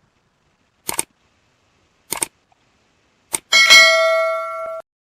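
Three sharp clicks, the first two doubled, about a second apart, followed by a loud bell-like chime that rings for about a second and fades.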